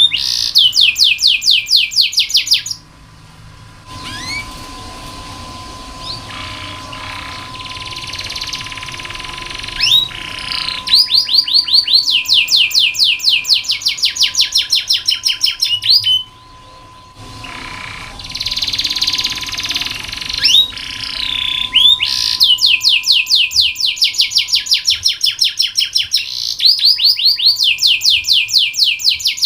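Domestic canary singing: long rolling trills of one syllable repeated about ten times a second, alternating with softer warbled passages and broken by a couple of short pauses.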